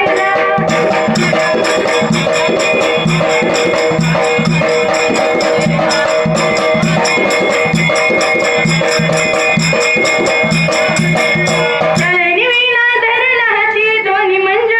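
Dhangari ovi folk music: an instrumental passage of held steady notes over fast, even percussion strokes and low drum beats. A woman's singing voice comes back in about twelve seconds in over the accompaniment.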